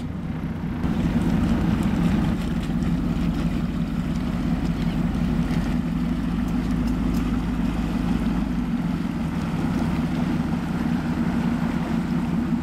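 Boat engine running steadily at low speed: a continuous low drone with a rushing hiss of wind and water over it.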